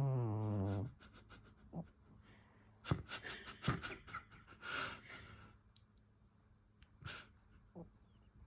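Sleeping cat snoring: one loud, pitched snore in the first second, dropping slightly in pitch, followed by softer wheezy breaths and snuffles.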